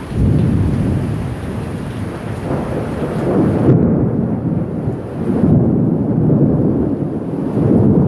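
Thunder from a Florida thunderstorm, a long low rumble that rolls on in swelling waves over the hiss of rain. The high hiss thins out suddenly about halfway through.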